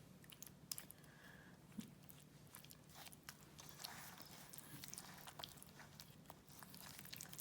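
Faint wet squelching and small clicks of a spoon stirring a thick yogurt marinade through pieces of raw lamb in a bowl.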